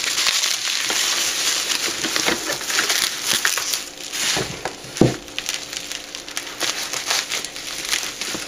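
Packaging crinkling and rustling as it is handled and pulled off, with one sharp knock about five seconds in.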